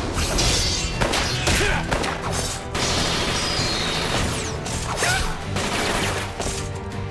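Animated battle sound effects: gunshots, crashes and impacts over driving background music.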